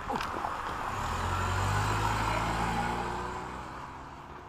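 A car engine swelling in loudness and then fading away, as a car drives past or off.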